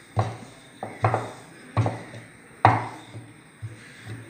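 Wooden rolling pin rolling out chapati dough on a round wooden board, with a run of irregular wooden knocks, several a few seconds apart, as the pin strokes back and forth.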